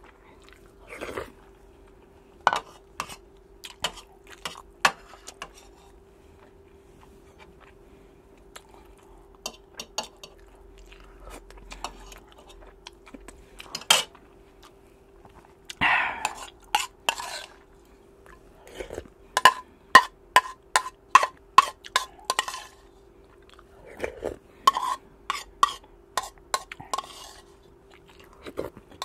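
A spoon clinking and scraping against a ceramic bowl and plate during a meal of rice, with chewing between. The clinks are scattered at first, then come in quick runs of about four a second in the second half.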